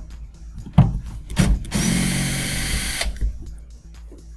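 Cordless electric screwdriver running for about a second, backing out a screw that holds a DLP TV's optical block. A couple of sharp clicks come before it starts.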